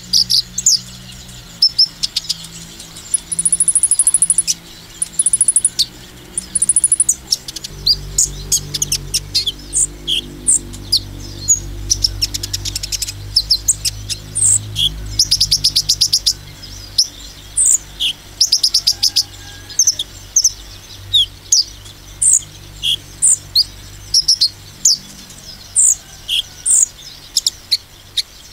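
Van Hasselt's sunbird (kolibri ninja) singing a busy run of sharp high chirps broken by fast rattling trills, the rapid, excited song that bird-keepers call 'nembak'.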